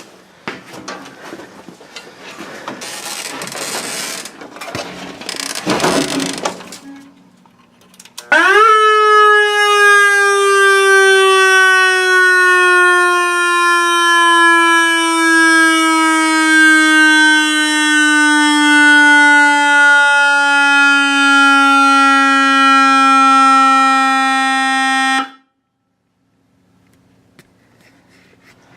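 Electronic siren tone from a Whelen ESC-864 siren controller through a speaker driver: it snaps up about eight seconds in, then holds a loud buzzy tone that slowly sinks in pitch for about seventeen seconds before cutting off suddenly. Before it, several seconds of irregular rustling and handling noise.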